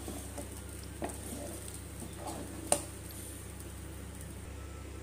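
A spoon stirring and scooping thick khichdi in an aluminium pressure cooker, with a few soft knocks and one sharp knock of the spoon against the pot just under three seconds in. After that only a steady low hum remains.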